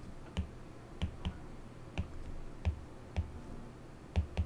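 Stylus tip tapping and clicking on a tablet screen during handwriting: about eight light, irregularly spaced clicks, each with a dull knock.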